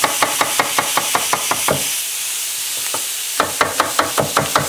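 Chef's knife rapidly chopping red onion fine on a wooden cutting board, about five quick strikes a second, with a pause of a second and a half midway. A steady sizzle of tuna steaks searing in a hot pan runs underneath.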